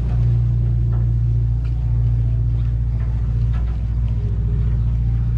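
Party boat's engine running with a steady, deep drone.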